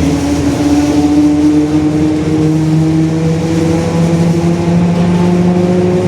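Rear differential of a Mercedes-Benz OF-1721 bus droning very loudly while the bus drives: a steady whine that climbs slowly in pitch as the bus gathers speed, over the rumble of the engine and road.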